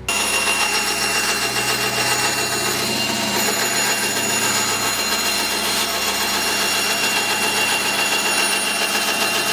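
An electric power tool running steadily at constant speed, cutting in abruptly at the start with a steady high whine over dense noise.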